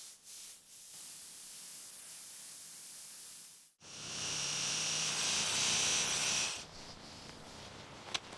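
A steady spraying hiss. After a sudden cut about four seconds in, a louder hiss with a high whistling tone runs for about two and a half seconds, then drops back to a faint hiss.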